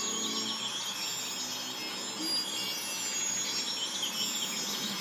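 Forest ambience of insects chirping steadily, heard through a television speaker. A low musical tone dies away about half a second in.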